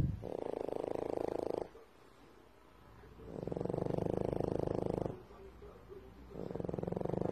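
French bulldog snoring, three long snores about three seconds apart, each made of a fast rattle. A short low thump sounds at the very start.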